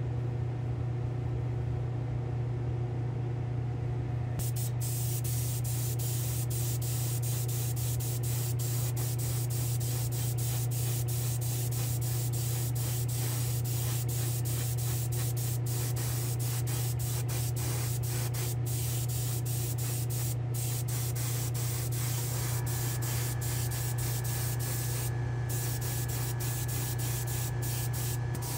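Airbrush spraying white sealer onto a small diecast truck cab: a steady hiss over a steady low hum.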